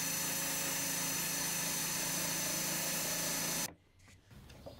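Electric drill spinning a wire wheel brush over a steel crosscut saw blade, scrubbing off loosened rust in a steady whir. It cuts off abruptly near the end.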